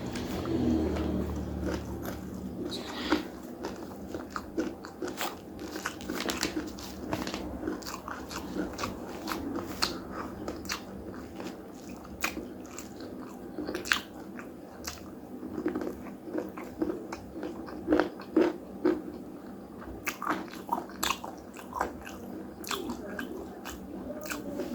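Close-miked eating: wet chewing of a mouthful of rice and side dishes, with irregular sharp crunches and clicks from biting into crisp food.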